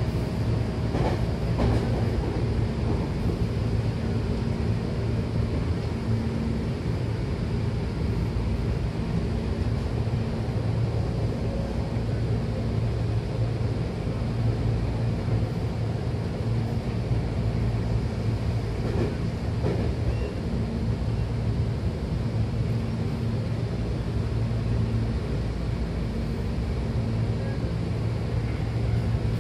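Hankyu Takarazuka Line commuter train running between stations, heard from inside the car: a steady rumble of wheels on rail with a low hum.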